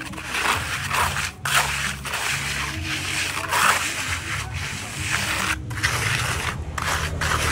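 Hand trowel scraping and smoothing over wet cement mortar in repeated strokes, a gritty swish about once a second.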